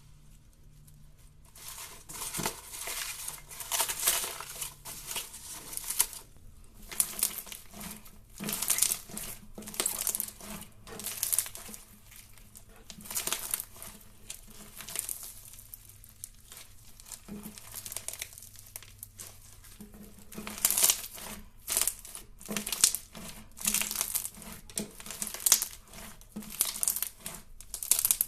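Crunchy slime being squeezed and worked by hand, giving crackling, crinkling crunches. They come in repeated bursts with short pauses, starting about two seconds in.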